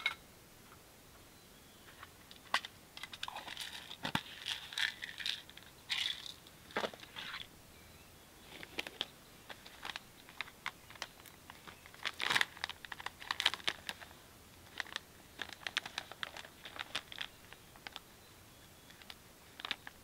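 Hands crinkling and tearing a plastic packet, in clusters of short crackles with pauses between.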